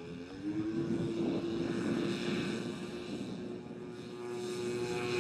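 Engines of a twin-engine giant-scale radio-controlled Grumman S-2 Tracker model running as it taxis, a steady propeller drone whose pitch rises a little about half a second in and then holds.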